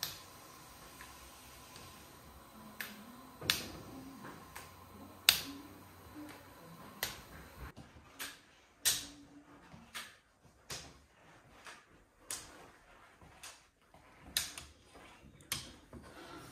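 A person walking on forearm crutches, the crutch tips tapping on a wooden floor. The taps are sharp and irregular, about one a second, and come closer together in the second half.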